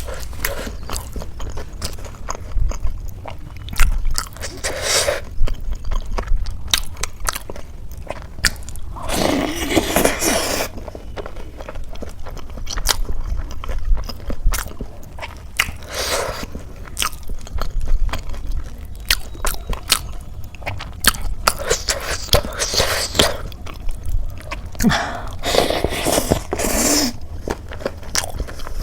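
A person chewing and crunching khasta samosa with ghugni: a steady run of crisp crackles, with about five louder, longer crunching bites spread through.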